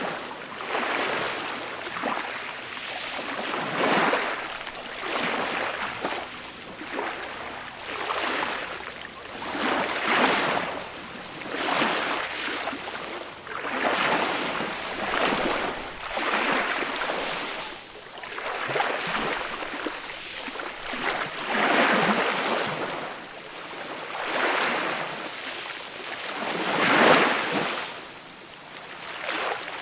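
Small, gentle sea waves washing onto a beach, a soft swelling rush of surf every two to three seconds, with the loudest wash near the end.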